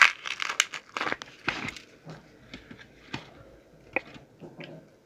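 A paratha being torn apart by hand close to the microphone: a dry, crackling rip for about the first two seconds. Then quieter scattered clicks and small taps as fingers pick at the food.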